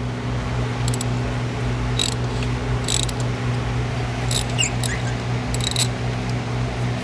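A tight spark plug squeaking in its threads as it is turned out with a socket and ratchet: short squeaks and clicks about once a second, over a steady low hum.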